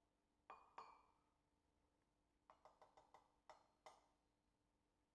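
Faint knocks and clinks of a wooden spoon against small white bowls of spices: two taps about half a second apart near the start, a quick run of about six light taps around the middle, then two more.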